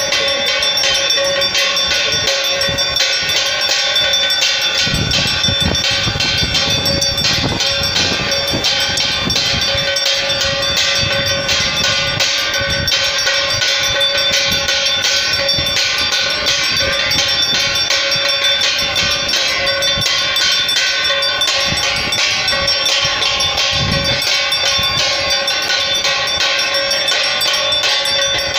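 Hand bells and cymbals being struck fast and without a break, a dense metallic clanging over a steady ringing tone, as played through a Hindu aarti.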